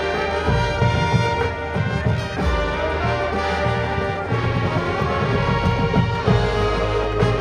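High school marching band playing, with the brass holding sustained chords over drums and percussion.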